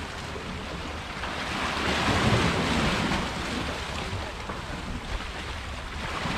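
Wind on the microphone over harbour water washing against a rock ledge: a steady noise that swells for a moment about two seconds in.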